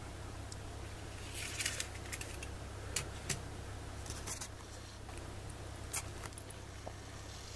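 Small plastic N-gauge 205 series model train cars being handled and set down on a table: scattered light clicks and short rustles over a steady low hum.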